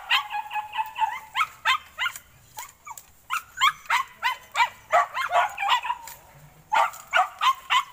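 Hunting dogs barking and yelping in a rapid string of short, high-pitched calls, several a second, with one held cry of about a second near the start.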